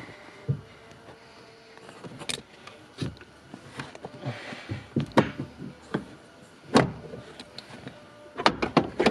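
Scattered sharp metal clicks and knocks from a Fiat 500 steering column shaft being worked loose under the dashboard, its bolts already out. The knocks come irregularly, with the loudest about two-thirds of the way through and a quick run of them near the end.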